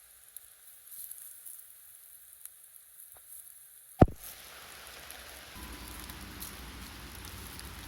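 Campfire crackling, faint scattered pops and ticks, then one sharp pop about four seconds in, after which a louder steady hiss sets in.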